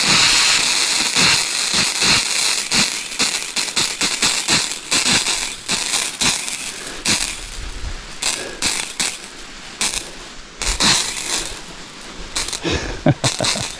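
Pump-fed garden hose spraying water onto grass: a steady rushing hiss broken by many irregular sharp clicks.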